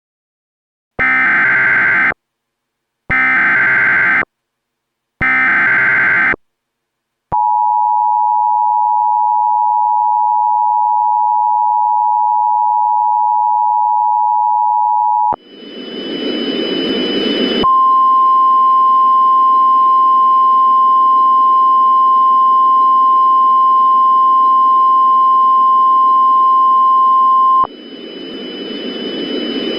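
Emergency Alert System tones: three short bursts of SAME digital header data, then the two-tone EAS attention signal held steady for about eight seconds. Radio static then comes in, and NOAA Weather Radio's single-tone warning alarm sounds steadily over the hiss for about ten seconds, cutting off abruptly near the end.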